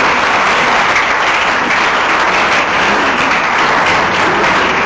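Audience applauding: dense, steady clapping from a seated crowd.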